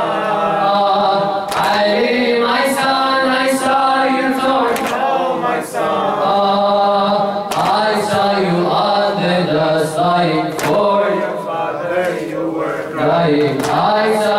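A male reciter chanting a noha, a Shia mourning lament, unaccompanied into a microphone in long sung lines. Sharp slaps keep a steady beat of about one a second beneath the chant: chest-beating (latmiya) in time with the lament.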